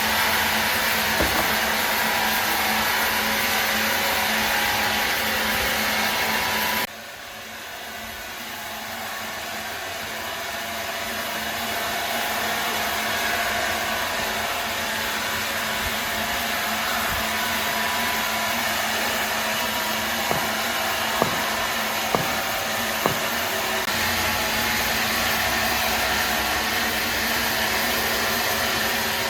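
Woodworking machinery running with a steady whirring noise. About seven seconds in it cuts to a quieter run that slowly builds back up, with a few sharp clicks in the second half.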